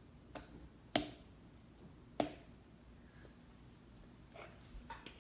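A spoon knocking against a mixing bowl while working fluffy slime: a light tap, then two sharp knocks with a short ring, about a second apart, followed by faint small clicks and rustling near the end.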